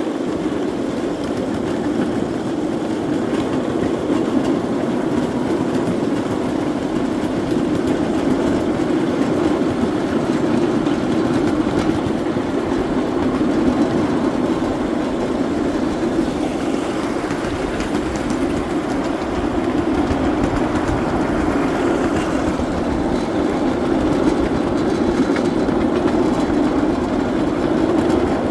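Miniature ride-on locomotive running steadily along small-gauge track, its running noise and the wheels on the rails mixed into one even sound.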